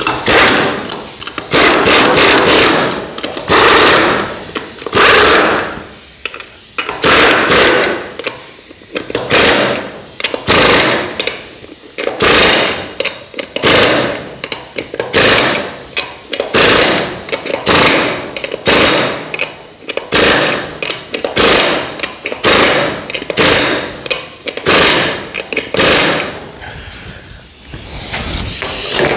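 Air impact wrench running on a wheel's lug nuts in repeated short bursts, one every one to two seconds.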